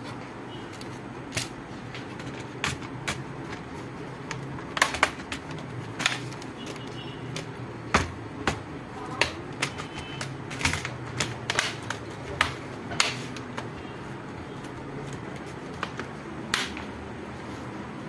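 Irregular sharp clicks and taps of a plastic laptop case being handled and pressed together as the bottom cover of a Lenovo ThinkPad T580 goes back on.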